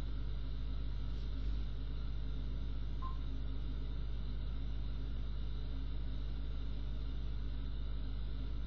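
Steady low background hum with a light hiss, unchanging throughout; a single faint short blip about three seconds in.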